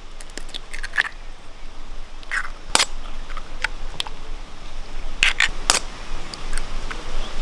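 Eggs cracked open by tapping the shells with a kitchen knife blade: a series of sharp clicks and cracks, the sharpest a little under three seconds in.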